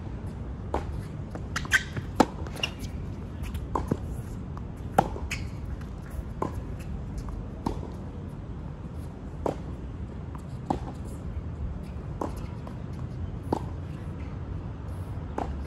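Tennis ball being hit back and forth in a rally on a hard court: sharp knocks of racket strikes and ball bounces, roughly one a second, over a steady low outdoor hum.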